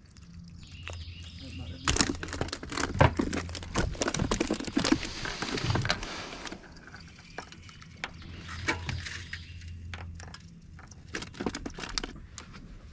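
Irregular clicks, knocks and rattles of fishing gear being handled on a boat deck, thickest in the first half, over a low steady hum that comes and goes.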